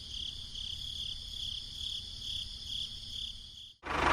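Crickets chirping steadily, a high even trill pulsing about twice a second. It cuts off suddenly near the end as a loud, noisy sound breaks in.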